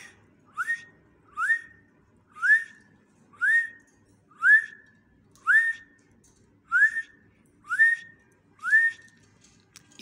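Whistling: a short rising note, sliding up and then holding briefly, repeated about ten times at roughly one-second intervals.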